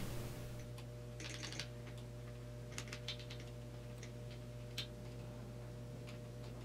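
Ratchet wrench clicking in several short runs while the rocker shaft retaining nuts are tightened a little at a time, over a steady low hum.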